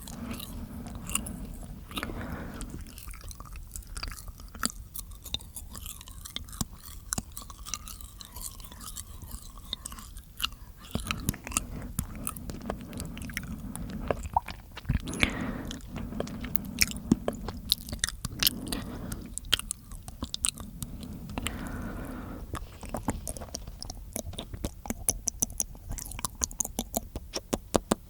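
Close-miked mouth sounds: a dense run of wet clicks and smacks of the tongue and lips, coming faster near the end.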